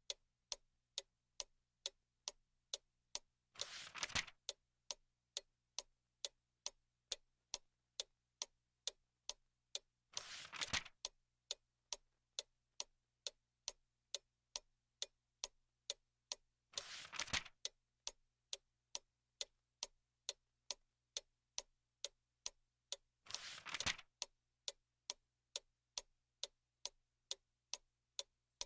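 Clock ticking steadily, about two ticks a second, with a short papery rustle of a book page being turned every six or seven seconds.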